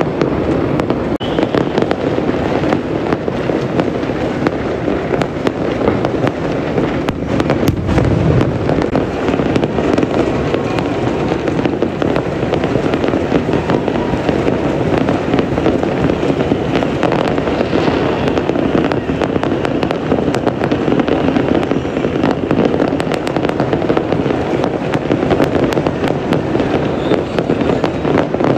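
New Year's fireworks display: a dense, continuous crackle of bursts, with one heavier boom about eight seconds in.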